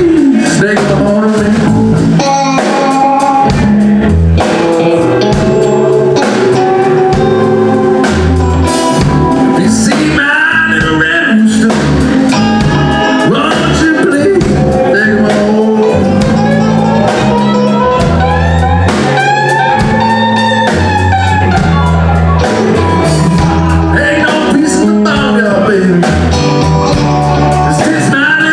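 Live blues band playing: a man singing over electric guitar, electric bass and drum kit.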